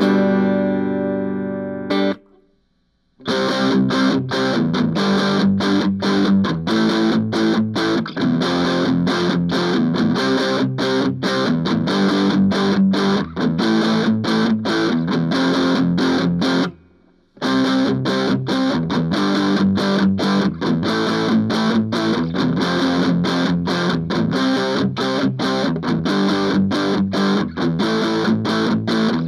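Electric guitar played through a Monoprice mini effects pedal: a held chord rings out and stops about two seconds in, then a fast, even rhythm of picked chords starts, breaks off briefly partway through, and resumes.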